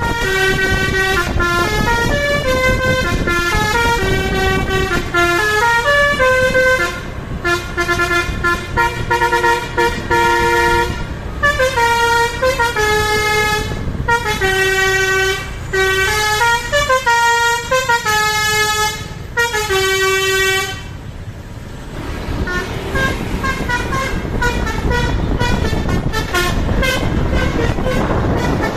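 Indonesian bus 'telolet' Basuri multi-tone horn playing a stepping melody of held notes. About two-thirds through it drops away briefly, and fainter horn notes carry on over rumbling engine and traffic noise.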